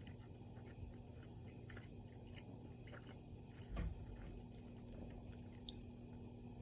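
A person chewing a steak and cheese sandwich close to the microphone, with soft, faint mouth clicks about two to three times a second. A single louder knock comes just under four seconds in.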